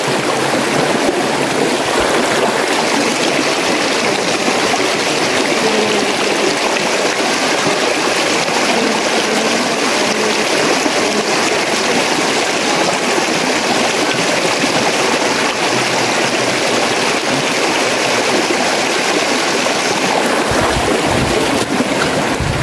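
Steady rush of a rocky mountain river flowing over stones. About 20 seconds in, a low rumble of wind buffeting the microphone joins it.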